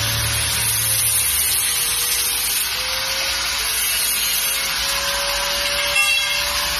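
Handheld angle grinder cutting a metal bar: a steady whine with a bright, hissing grind from the abrasive disc, its pitch sagging slightly under load. There is a sharp clank about six seconds in.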